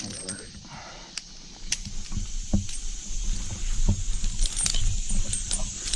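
Irregular light clicks and clinks of metal climbing hardware being handled, over a low rumble that builds from about two seconds in.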